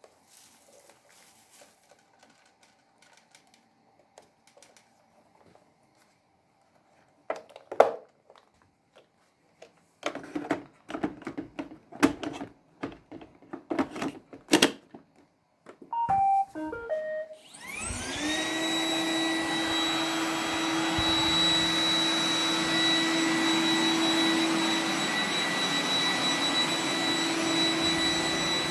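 Scattered clicks and a few loud knocks, then a short tune of beeps from a Roomba 980 robot vacuum starting up. Its vacuum motor then spins up with a rising whine and runs steadily.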